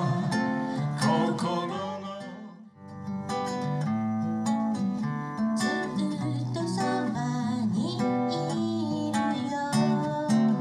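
Strummed acoustic guitar accompanying a man singing a Japanese folk song. The music breaks off for a moment about two and a half seconds in, then the guitar picks up again.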